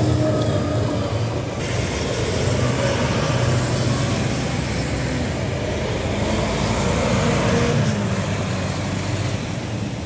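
Heavy construction vehicles driving past: a JCB telehandler's diesel engine, then a flatbed lorry coming along the site road. A continuous engine drone, its pitch shifting a little after the middle.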